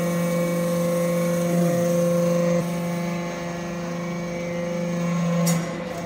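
Hydraulic metal-chip briquetting press running: a steady mechanical hum made of several fixed tones. About two and a half seconds in, one tone drops out and the hum gets quieter. A short sharp clank comes near the end.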